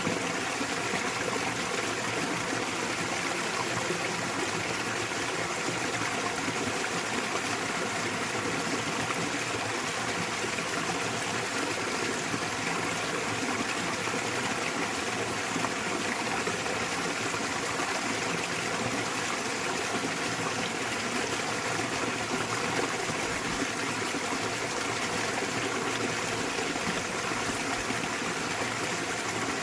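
Small waterfall splashing steadily into a mountain stream, an even, unbroken rush of water.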